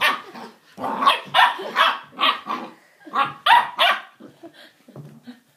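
Puppy barking in a rapid series of short, high yaps, about ten in the first four seconds, growing fainter and more scattered near the end.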